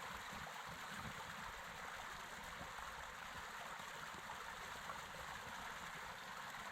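Steady rush of creek water running over a small waterfall.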